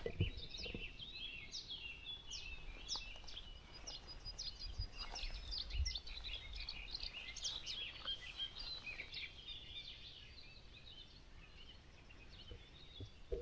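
Several songbirds singing together, with many short, overlapping chirps and trills that thin out over the last few seconds.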